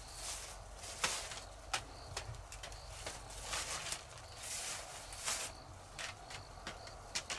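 Footsteps crunching and rustling through dry bamboo leaves and twigs, roughly one step a second, with a few sharp snaps of twigs.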